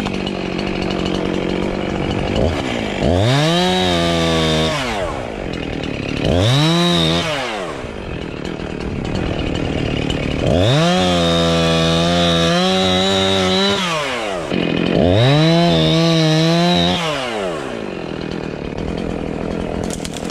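Husqvarna gas chainsaw idling, then revved to full throttle four times as it cuts into tree branches. Each time it climbs to a high steady pitch, holds for one to three seconds, then falls back to idle.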